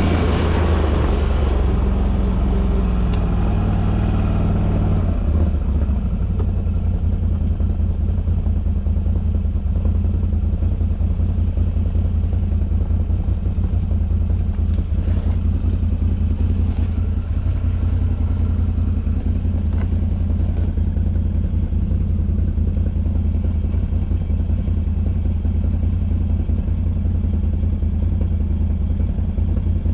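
Off-road vehicle engine running under way, its pitch shifting over the first few seconds and then holding steady as it cruises.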